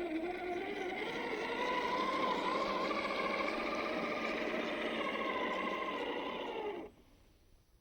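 Traxxas TRX-4 RC crawler's electric motor and geared drivetrain whining under throttle. The pitch climbs over the first couple of seconds, holds steady, then cuts off abruptly about seven seconds in as the throttle is released.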